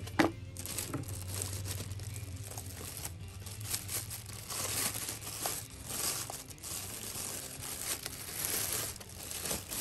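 Packaging crinkling and rustling as the nail gun's box is unpacked by hand, with one sharp click about a quarter second in.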